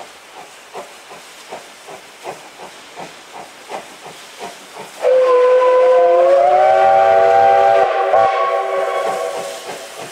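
Steam locomotive chuffing at a steady beat of about three exhaust beats a second, growing louder. About five seconds in, its steam whistle blows a loud chord that bends up in pitch, holds for a few seconds and fades away.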